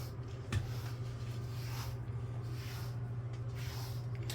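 A grooming brush pulled through a cat's fur in repeated soft swishing strokes, about one a second, with a short click about half a second in. A steady low hum runs underneath.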